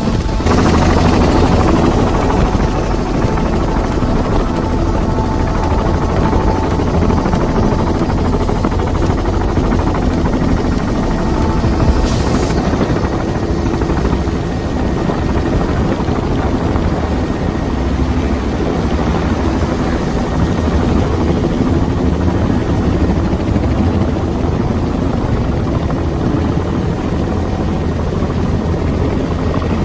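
Helicopter rotor and engine noise heard from inside a doors-off cabin: a loud, steady drone.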